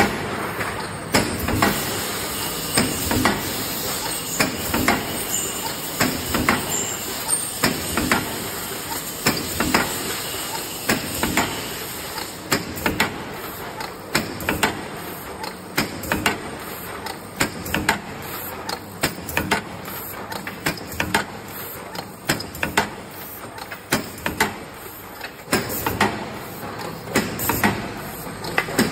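Aluminium foil container forming line running: the punch press stamps foil trays in a steady run of sharp metallic knocks, about one to two a second, over continuous machine noise and a hiss.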